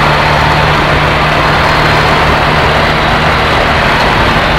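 Piper PA-28-140 Cherokee's four-cylinder Lycoming engine and propeller running at takeoff power, heard from inside the cabin on the takeoff roll: a loud, steady drone with a constant low hum.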